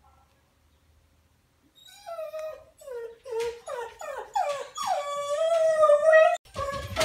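A dog whining and yelping excitedly. About two seconds in, a rapid run of short, falling whines starts, leading into one longer held whine. A low thump comes near the end.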